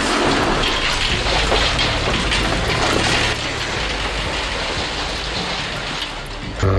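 Heavy machinery at work: a dense, noisy rumble and clatter that drops a little about halfway through. Right at the end it gives way to a steady engine drone.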